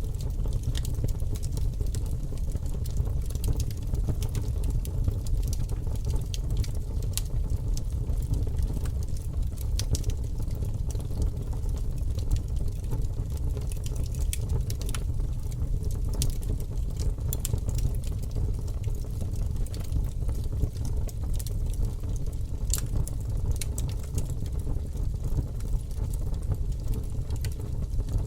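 A fire burning steadily: a constant low rumble of the flames with scattered sharp crackles and pops.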